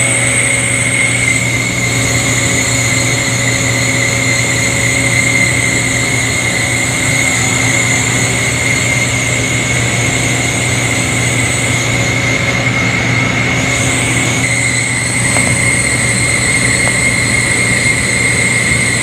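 Industrial rotary screw air compressors running steadily: a loud, constant machine hum with a steady high-pitched whine over it.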